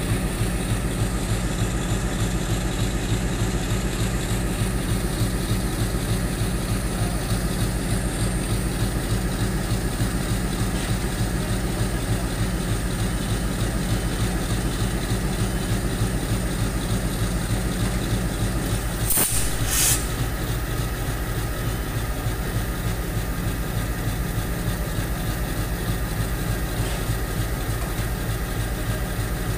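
Diesel locomotive's engine running steadily, a low, even hum with a fine regular pulse. Two short hissing bursts come a little after two-thirds of the way through.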